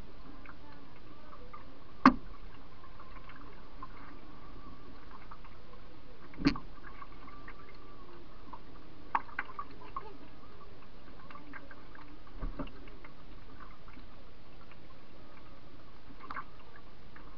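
Sharp knocks on a canoe's hull, about one every three to four seconds, the loudest about two seconds in, picked up by a camera mounted on the bow, over a steady hiss with a faint thin whine.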